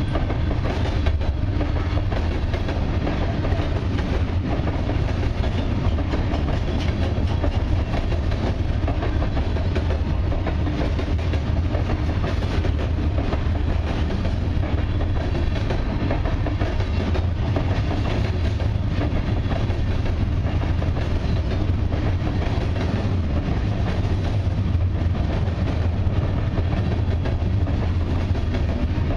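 Freight train's gondola cars rolling steadily past close by: a continuous heavy low rumble with the clicking and clatter of wheels over the rails.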